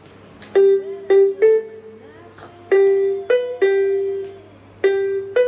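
A child plays a Casio electronic keyboard one note at a time with a piano-like tone. It is a slow, simple tune of about eight notes in three short phrases, and each note rings on briefly before the next.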